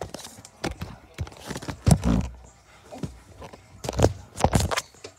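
Handling noise from a phone being moved and set in place: fingers and objects knocking and rubbing against its microphone. There are irregular clicks, a heavier thump about two seconds in, and a cluster of knocks about four seconds in.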